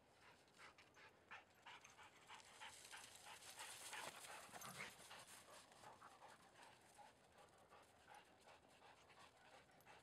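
Faint dog panting mixed with quick, soft crunches of paws moving on snow, busiest and loudest around four to five seconds in.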